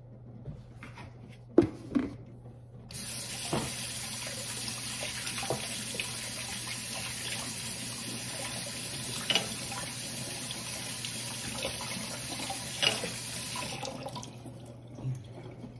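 Kitchen tap running into a sink as a steady hiss, turned on about three seconds in and shut off near the end. A few knocks and clunks come before and during it.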